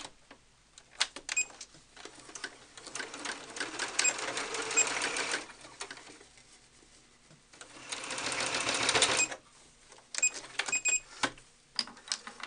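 Computerized sewing machine stitching a folded-over hem in two runs: one of about three seconds starting some two seconds in, and a shorter one near eight seconds. Sharp clicks and taps from handling the fabric and machine come before, between and after the runs.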